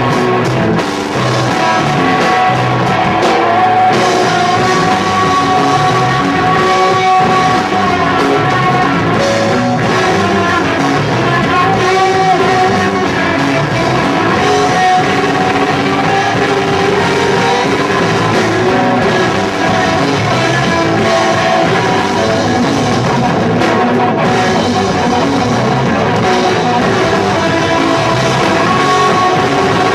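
Live rock band playing loudly: electric guitar, bass guitar and drum kit together in a continuous passage with sustained guitar notes over steady drumming.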